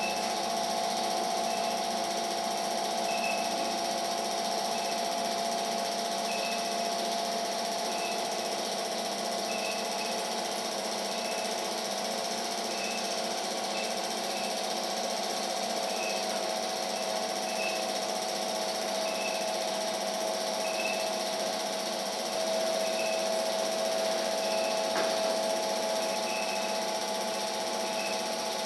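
Steady hum of a small motor, with a faint high tick repeating about every second and a half.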